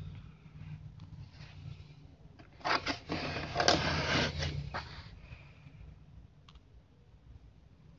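Handling noise as a pair of leather boots is moved and set down on a cardboard shoebox: a burst of scraping and rustling with a few sharp knocks, starting about two and a half seconds in and lasting about two seconds, then a single light click.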